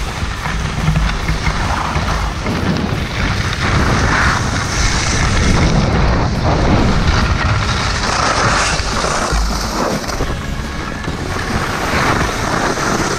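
Heavy wind buffeting on an action camera's microphone, with a steady hiss of sliding over snow.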